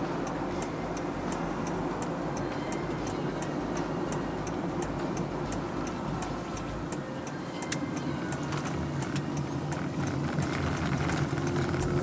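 Honda Freed+ Hybrid minivan driving along at steady speed, a constant low road and drive noise, with a regular light ticking at about three ticks a second that becomes sparser and less even in the second half.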